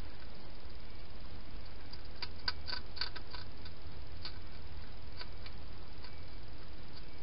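Wild hedgehog crunching dry food from a bowl: a quick run of clicky crunches about two seconds in, then a few scattered single ones, over a steady low hum.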